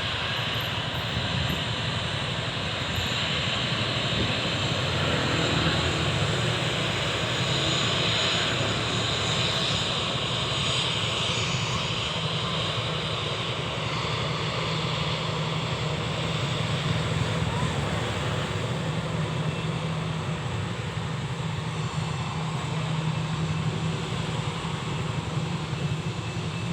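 Airliner engines running steadily, a continuous rushing noise with a low hum underneath.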